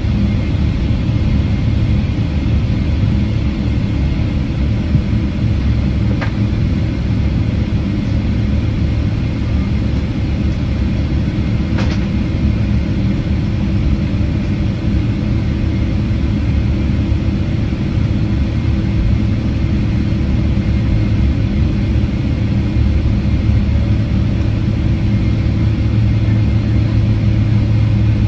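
Steady low rumble and hum inside the cabin of a Boeing 777-300ER on the ground, its GE90 engines at idle, with a couple of faint clicks. The low hum grows slightly louder near the end.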